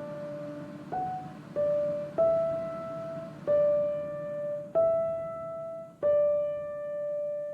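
Background music: a slow piano melody, single notes struck about once a second or so, six in all, the last one held and fading away.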